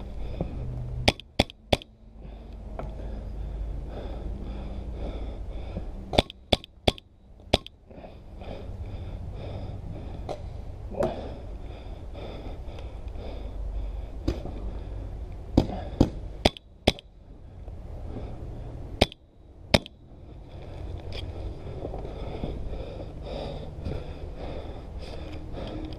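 Compressed-air paintball marker (a Milsig magazine-fed marker) firing in short volleys: three quick shots, then four, four more and a final pair, each a sharp crack.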